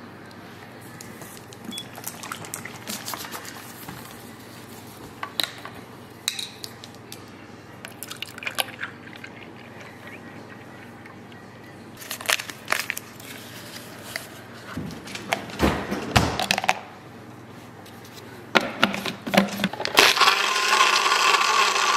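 Chocolate milk poured from a plastic bottle into a NutriBullet blender cup, amid knocks and clicks of the cup and bottle being handled. About two seconds before the end the NutriBullet blender starts with a loud steady whir as the cup is pressed down onto its base.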